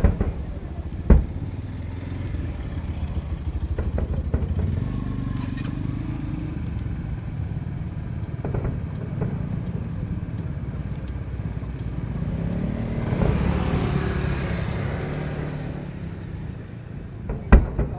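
Fireworks bursting with sharp bangs, once at the start, once about a second in and twice near the end. Between them a motor vehicle's engine rumbles, swelling twice and loudest about three-quarters through as it passes.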